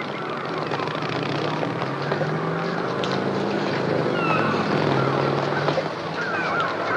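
Film soundtrack of city street traffic: a steady engine drone that slowly shifts in pitch, with gulls crying overhead in short falling calls, several in a cluster near the end.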